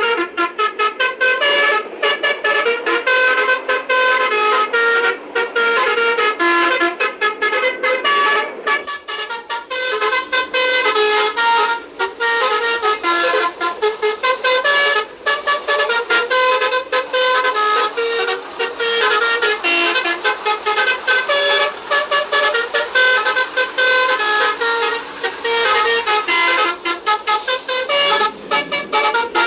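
Basuri multi-tone 'telolet' bus horn playing a tune: a run of quick-changing horn notes with brief pauses.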